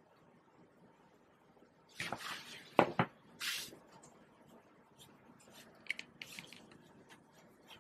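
Chinese ink brush being worked: a rustle and two sharp knocks about two to three seconds in, then a brief high hiss and faint dry scratches of the bristles dragged across paper as an outline stroke is drawn.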